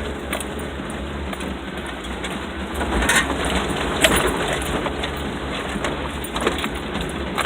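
Vehicle driving slowly over a rough, washed-out dirt road: a steady low rumble with rattles, and two sharp knocks about three and four seconds in.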